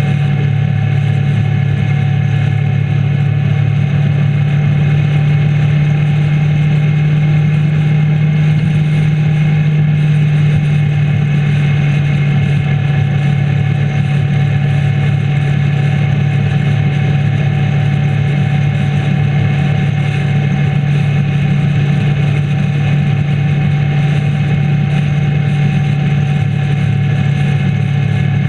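Motorcycle engine holding a steady drone at motorway cruising speed, with wind and road rush over it; the pitch does not change.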